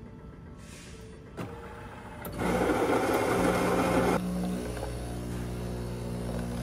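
laRhea vending coffee machine brewing a drink into a paper cup, after a click about a second and a half in. Its motor starts about two seconds in and runs with a steady hum, loudest for the first two seconds, then settles a little quieter.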